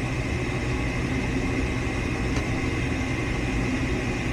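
Goodman gas furnace humming steadily through an ignition attempt, with a faint tick about two and a half seconds in. No rush of gas is heard: the burners fail to light, which the tech ties to dirty, rusted burners and orifices.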